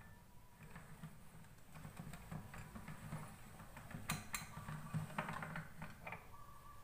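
Hand-cranked stainless steel pasta roller turning as a sheet of dough is rolled through it, making faint irregular clicking and rattling, with a few sharper knocks about four and five seconds in.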